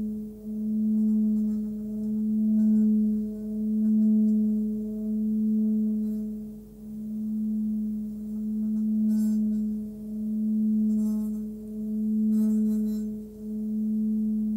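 Hand-hammered Nepalese singing bowl, 18.5 cm across, rubbed around its rim with a covered wooden mallet and singing a steady tone near 213 Hz, between G-sharp and A, with fainter higher overtones. Its volume swells and dips about every second and a half, with a few faint rasps of the mallet on the rim in the second half.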